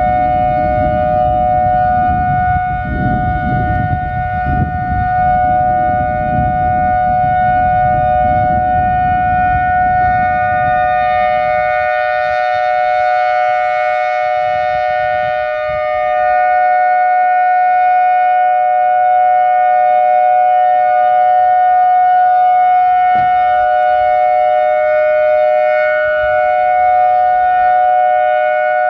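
Whelen Vortex R4 rotating outdoor warning siren sounding a steady alert: a held chord of several tones that does not rise or fall in pitch. It grows brighter around the middle and a little louder after that as the rotating head sweeps round. A low rumbling noise lies under it for the first ten seconds or so.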